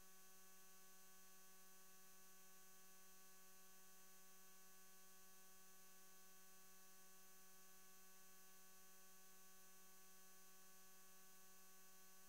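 Near silence: a faint, steady electrical hum with several fixed tones and a light hiss.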